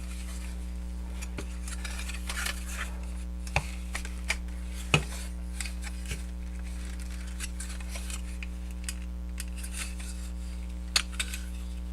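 Plastic parts of a transforming robot figure being handled and worked at while trying to pull its feet out: faint rubbing with a few sharp clicks about three and a half, four and five seconds in and again near the end, over a steady electrical hum.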